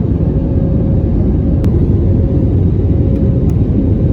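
Steady cabin noise of an Airbus A320neo climbing shortly after takeoff: a low engine and airflow rumble with a faint steady hum above it.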